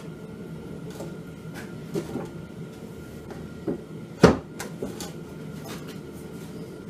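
Manual tire bead breaker being worked on a quad wheel: scattered metal clunks and knocks, with one loud sharp clank about four seconds in, over a steady background hum.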